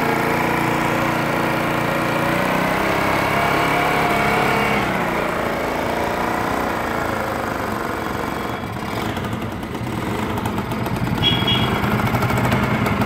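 Scooter engine running hard on a stand with its rear wheel off, driving a rope hoist. Its speed rises and falls, dips about nine seconds in, then picks up again as it takes up the load.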